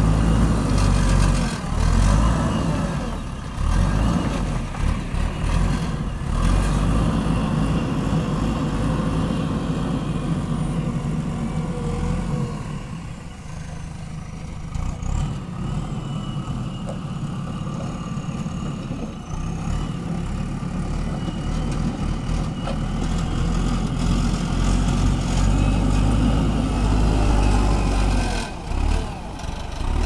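JCB backhoe loader's diesel engine running while the machine works, its note rising and easing off with the load and dropping back for a few seconds around the middle.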